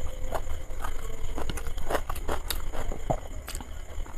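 Close-up eating sounds of chicken biryani eaten by hand: chewing and lip smacks, with fingers working the rice on the plate, heard as scattered soft clicks and ticks over a steady low hum.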